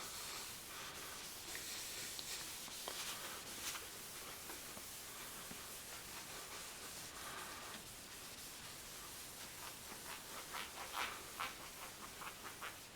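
Faint rubbing of a cloth working headlight-restoration wax into a plastic headlight lens, with soft strokes a couple of seconds in and a few more near the end.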